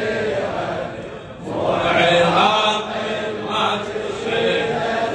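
Shia latmiya chanting: a reciter's amplified voice leading, with a crowd of mourners in a reverberant hall. The chant dips just over a second in, then returns louder.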